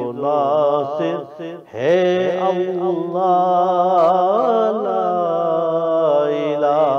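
A man singing a naat unaccompanied in a devotional chanting style, holding long, wavering notes with sliding ornaments. There is a brief break for breath just before two seconds in.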